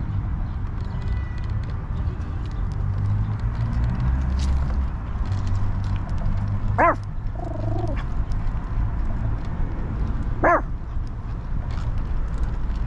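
Steady low rumble of rolling along a paved path, with two brief high-pitched calls, about seven and ten and a half seconds in.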